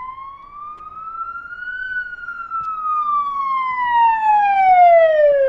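Police car siren wailing in one slow sweep that rises in pitch and then falls, growing louder as it goes, and cutting off abruptly near the end.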